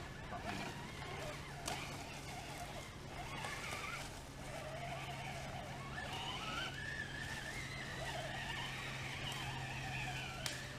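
Electric motor and drivetrain of a radio-controlled rock crawler truck whining as it climbs, the pitch rising and falling with the throttle. A steady low hum runs underneath, and there is a sharp click near the end.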